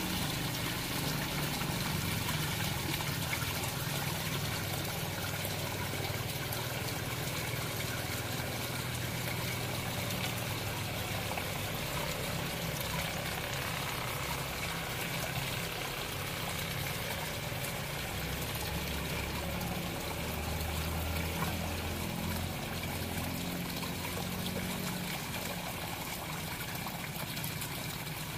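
Water trickling steadily through an aquaponics system's pipes and clay-pebble grow beds.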